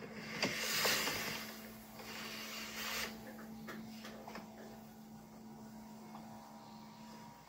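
Lance travel trailer's electric main awning extending: the awning motor hums steadily while the fabric and arms give rushing swishes, loudest about a second in and again near three seconds in, with a few light clicks.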